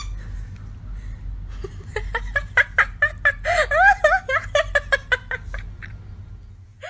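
A person giggling in quick short bursts for a few seconds, starting about two seconds in, over a low steady hum.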